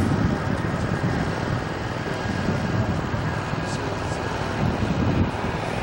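Wind buffeting the microphone outdoors: a continuous low rumble that swells and fades unevenly.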